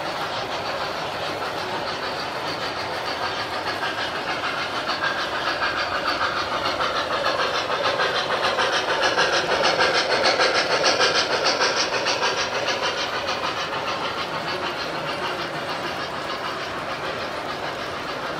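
Model passenger train rolling along its track, the wheels clicking fast and evenly over the rails. It grows louder as the cars pass close, peaks about ten seconds in, then fades.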